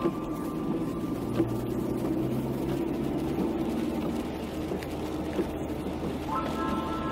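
Steady engine and road noise of a car driving on a wet road, heard from inside the cabin, with a few faint knocks.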